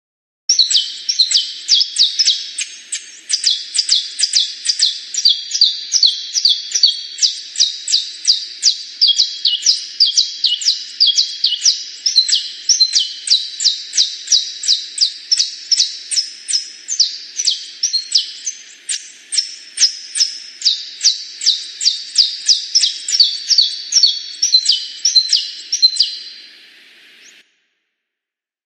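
Canary singing one long unbroken song of rapid, repeated high notes and trills, which cuts off suddenly near the end.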